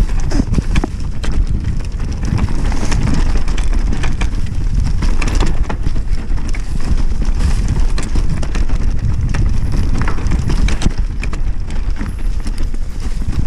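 Mountain bike riding down a leaf-covered forest singletrack: a steady rumble of wind on the microphone and tyres rolling over leaves and stones, with frequent clicks and knocks as the bike rattles over bumps.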